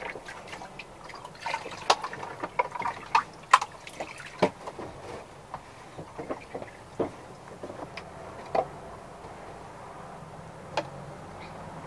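Water splashing and dripping in a plastic tub as a wet dog is rinsed with a scoop, with scattered sharp clicks and knocks, busiest in the first half.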